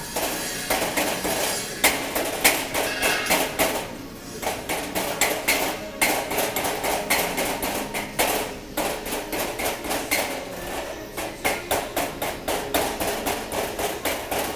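Chipping hammer rapping on a fresh stick-weld bead, knocking off the flux slag: quick metallic taps, several a second, in runs with short pauses between.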